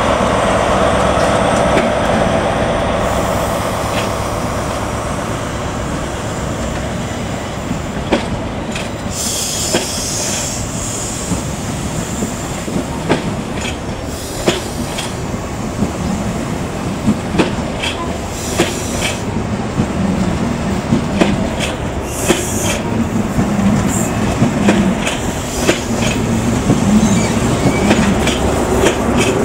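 Coaches of a CrossCountry HST rolling past as the train pulls away. The leading Class 43 power car's diesel engine fades over the first few seconds. Then the wheels click over rail joints, more and more often as the train gathers speed, with brief wheel squeals.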